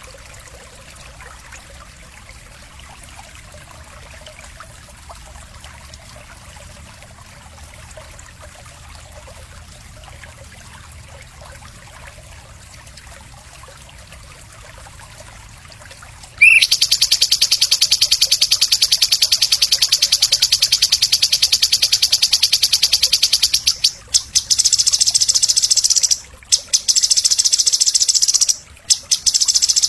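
Recorded animal song used to train songbirds. A faint background is followed, about halfway in, by a sudden loud, high-pitched buzzing trill of very rapid pulses. The trill runs on with a few short breaks near the end.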